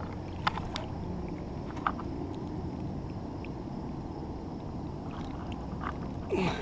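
Quiet water sloshing and small splashes from a hand holding a lake sturgeon in the river at the boat's side as it is released, with a few faint ticks in the first two seconds.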